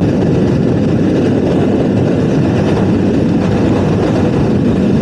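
Heavy wind noise buffeting the microphone on a motorcycle at highway speed, a steady low rumble that drowns out the rider's voice.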